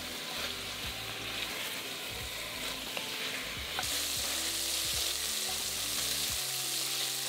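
Diced pork sizzling as it browns in hot oil in an enamelled casserole dish, stirred and turned with a wooden spoon that ticks and scrapes against the pan. The sizzle grows brighter about four seconds in.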